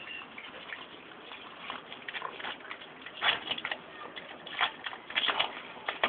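A raccoon handling and chewing a small crab at a shallow puddle: irregular sharp clicks and crunches, most of them from about three to five and a half seconds in.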